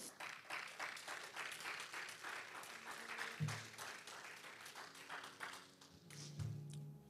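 A congregation clapping, faint and steady, with a few held musical notes coming in during the last couple of seconds.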